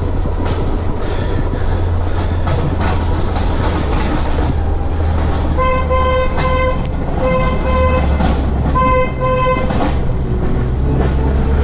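A vehicle's warning beeper sounds three even beeps about halfway through, each a steady pitched tone, over a steady low rumble.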